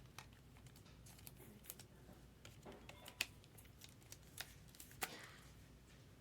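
Faint, irregular clicks and taps of trading cards being handled, with two sharper clicks about three and five seconds in, the second followed by a brief rustle.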